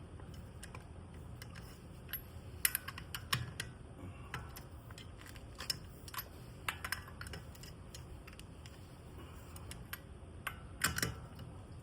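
Scattered light clicks and clinks of equipment being handled over a steady low hum, with a denser cluster about three seconds in and again near the end.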